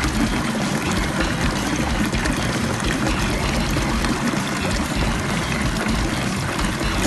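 Water running steadily.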